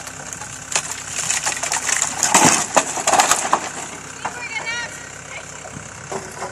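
Cat 246B skid-steer loader's diesel engine running steadily while the wooden lean-to frame it carries creaks, knocks and cracks. The wood noise is loudest from about two to three and a half seconds in.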